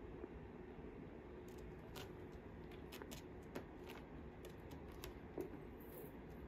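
Faint scattered clicks and light scratching from a kitten's claws and paws on a carpeted cat tree and plastic ball-track toy, with a sharper click about five and a half seconds in, over a steady low hum.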